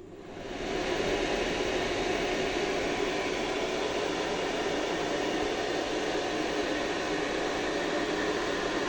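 HF-150 ventilation fan switched on, spinning up over about a second, then running steadily with an even rushing of air.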